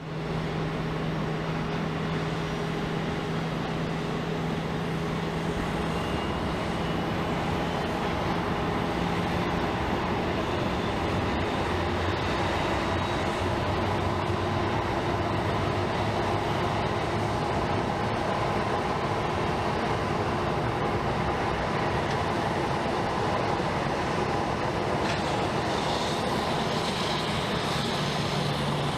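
Jet airliner engines running steadily, a constant broad rush with a low hum that shifts in pitch partway through.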